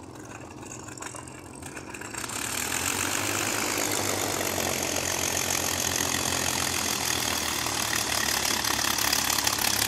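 Supermarine Spitfire's Rolls-Royce Merlin V12 engine running at low power as the fighter rolls along the runway after landing. It swells up about two seconds in and then runs steadily as the aircraft draws near.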